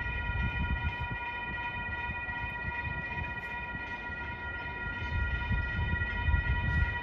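Railroad grade-crossing warning bell ringing steadily while the crossing is activated for an approaching train, over a low rumble.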